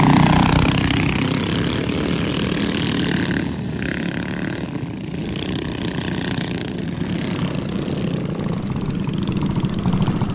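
A pack of small minibike engines running together at a race. The sound is loudest at the start and eases slightly after a few seconds.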